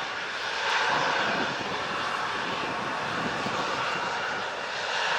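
Boeing 757's twin turbofan jet engines running, a steady roar that swells about a second in and again near the end.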